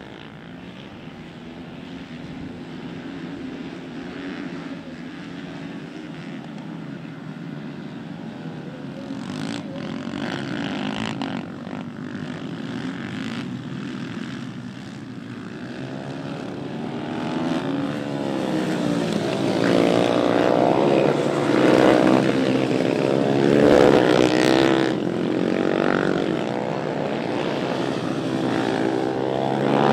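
A pack of racing motorcycles' engines, faint and distant at first, growing steadily louder in the second half as they come closer. Many engine notes overlap, their pitch rising and falling as the riders rev, shift and brake through the curves.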